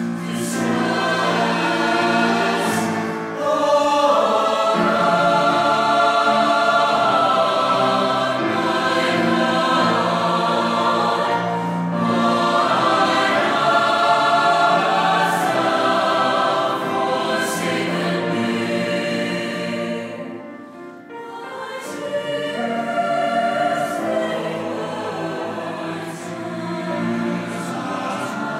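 A school choir singing a sacred piece, with a brief break in the singing about two-thirds of the way through.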